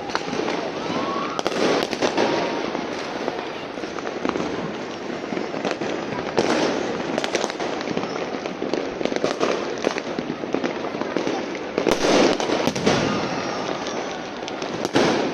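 Fireworks and firecrackers going off one after another: a dense run of bangs and crackles, with louder bursts every few seconds, over background voices.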